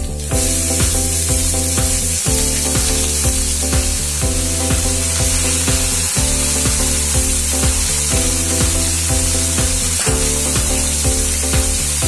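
Water spinach hitting hot oil and garlic in a non-stick pan, with a loud steady sizzle that starts just after it goes in. Background music with a steady beat plays underneath.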